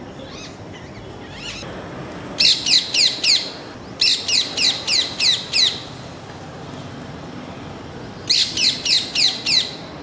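Rose-ringed parakeet calling: three runs of rapid, high, down-slurred screeches, six or seven notes to a run, over a low steady background noise.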